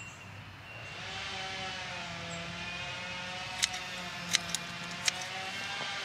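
Pruning shears snipping squash flower stems: sharp clicks, three or four in the second half. Under them, a motor drones in the background, swelling about a second in.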